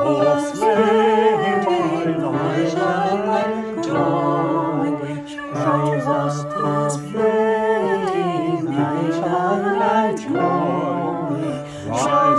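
A small virtual choir of mixed men's and women's voices sings unaccompanied in several parts. The voices were recorded separately and mixed together. The sung phrases break off briefly every couple of seconds.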